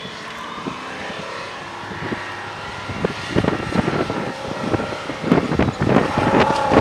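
Land Rover-based competition off-road car's engine revving hard under load, growing steadily louder as it approaches, with repeated thumps and clatter as it bounces over rough ground.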